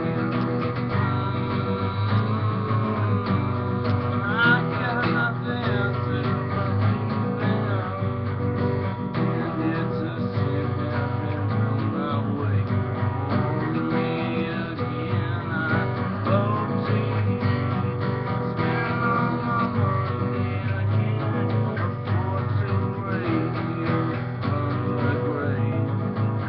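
Acoustic guitar strummed steadily in a continuous rhythm, its chords ringing.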